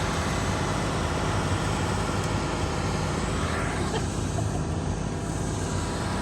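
Diesel engine of a concrete boom pump truck running steadily.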